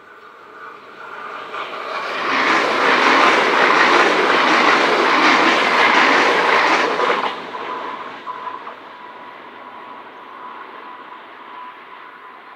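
A train passing close by: the noise of the train on the track builds over about two seconds, stays loud for about five, then drops away sharply as it clears, leaving a faint steady whine.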